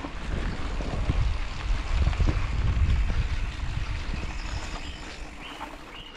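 Wind buffeting the microphone in an irregular low rumble, with the rattle of a mountain bike riding over a dirt forest track; loudest in the first few seconds, easing toward the end.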